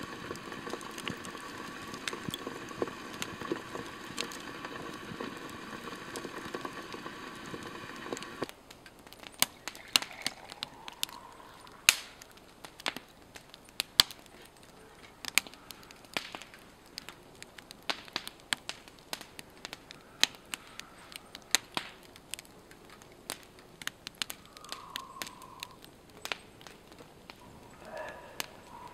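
A steady hiss for about the first eight seconds, then a wood campfire crackling with frequent sharp pops.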